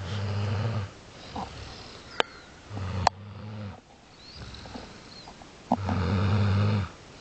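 Loud snoring: three low, droning snores, one every two and a half to three seconds, the middle one weaker. Two short sharp clicks sound between the first and second snores.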